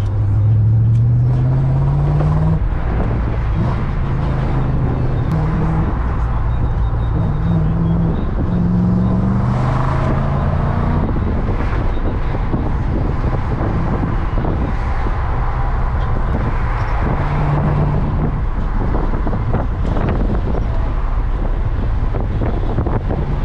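Interior driving sound of an E39 BMW M5 wagon's V8 under way: the engine's low note rises in pitch several times as the car accelerates, dropping back in between, over steady road and tyre noise heard inside the cabin.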